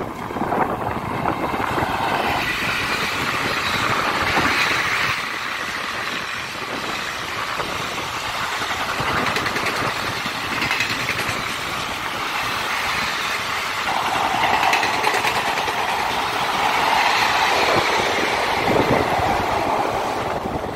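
Indian Railways passenger train of ICF coaches passing at speed: a continuous rumble and rush of wheels on rail, with a fine rattle of the coach wheels over the track. A steady higher ring joins in for a few seconds past the middle.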